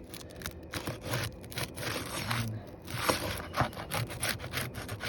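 A thin flat tool scraping and clicking under asphalt roof shingles as they are pried up off their nails, in irregular strokes.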